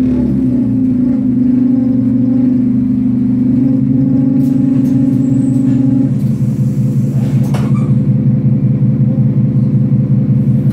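Scania OmniCity bus's diesel engine and driveline droning, heard from inside the passenger saloon. A steady tone holds for the first six seconds or so. Then it gives way to a pulsing, fluctuating drone, with a single knock a second or so later.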